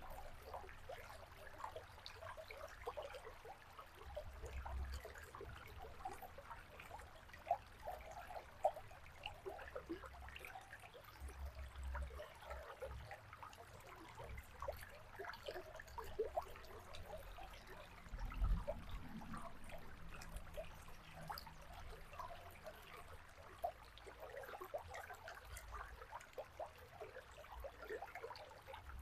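River water trickling and babbling, a steady patter of small splashes and gurgles. A low rumble comes and goes underneath, with a dull thump a little past the middle.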